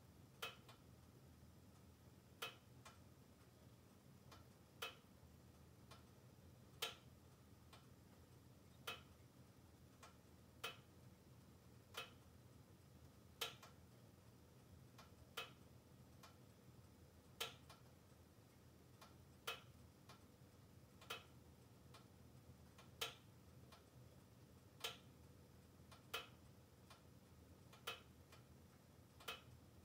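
Wood-burning log stove with its glass door shut, giving sharp single ticks or crackles every one and a half to two seconds, a little irregularly, over a faint low hum.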